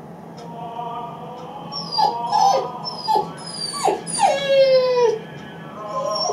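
Eight-week-old Great Dane puppy whining and crying, alone in his crate: a few short falling whimpers about two seconds in, then one longer drawn-out cry dropping in pitch, the distress of a young puppy left alone.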